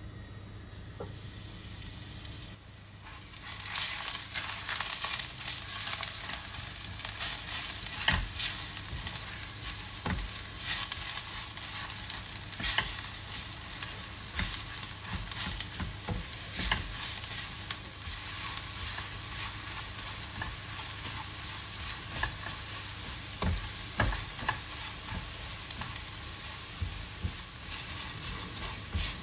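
Faint hiss of oil heating in a nonstick wok. About three and a half seconds in, eggs hit the hot oil with a sudden loud sizzle, then keep frying steadily while a silicone spatula stirs and scrambles them with repeated scraping strokes.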